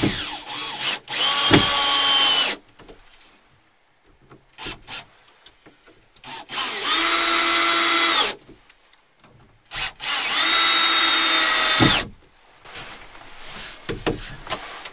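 Cordless drill working into a wooden board: the motor runs three times, each a steady whine of about one and a half to two seconds, with a few short clicks and knocks in between.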